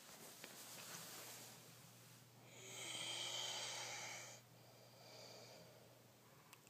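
People snoring in their sleep: slow, noisy breaths, the loudest a long snore from about two and a half seconds in that fades out a little after four seconds, then a weaker one about a second later.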